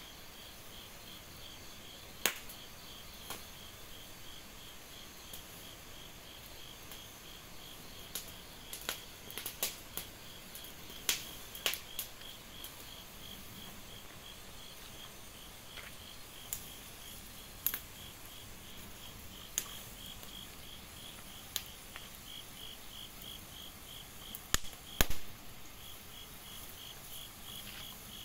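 Crickets chirping in a steady pulsing trill, with sharp cracks and pops from a burning fire scattered through it, the loudest cluster near the end.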